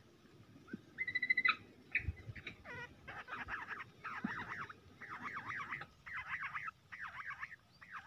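Bush quail calling: a couple of clear whistled notes about a second in and a short rattle, then a run of harsh, trilled bursts of about half a second each from about three seconds in.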